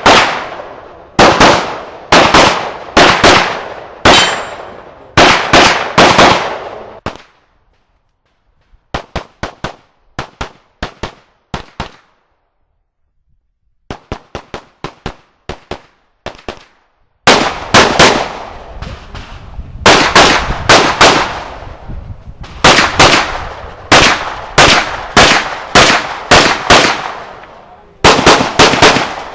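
Pistol shots fired in rapid strings, mostly as quick pairs (double taps on each target), by a competitor shooting an IPSC stage. There are two short pauses, and the shots through the middle stretch are fainter.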